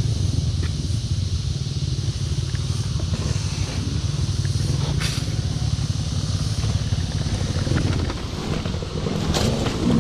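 Dirt bike engine running steadily while riding an enduro trail, easing off a little near the end.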